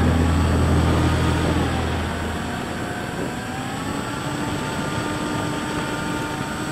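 Onboard sound of a HobbyKing Bixler 3 RC plane in flight: the whine of its electric motor and propeller, gliding up and down in pitch as the throttle changes, over wind rushing past the airframe. A deeper hum is heard under it and stops about two seconds in.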